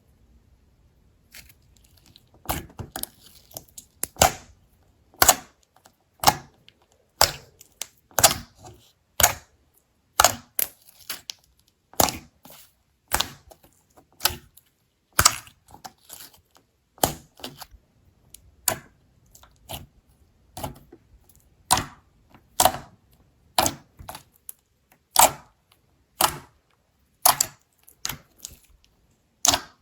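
Slime being worked, giving sharp crackling snaps about once a second, some in quick little clusters, after a quiet first two seconds.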